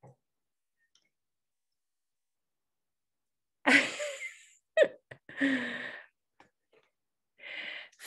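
Near silence for about three and a half seconds, then a woman laughing in several short, breathy bursts.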